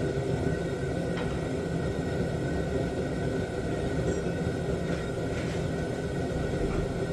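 Shop heater running with a steady low rumble and a faint steady hum, with a few faint light clicks.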